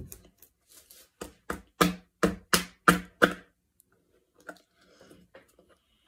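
A plastic straw jabbed repeatedly at a milkshake cup's lid: a quick run of about eight short squeaky knocks, roughly three a second, then a few faint fumbling clicks.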